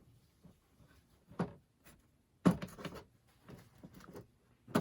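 Knocks and clatter of tools and metal parts as a kitchen faucet handle is worked loose: a single knock, then a louder clatter lasting under a second halfway through, a few lighter knocks, and a sharp click near the end.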